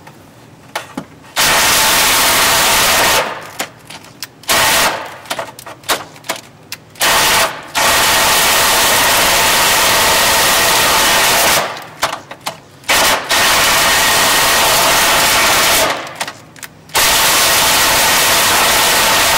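Cordless drill running in repeated bursts of one to four seconds with short pauses, its bit grinding against steel as it is worked around to elongate a bolt hole.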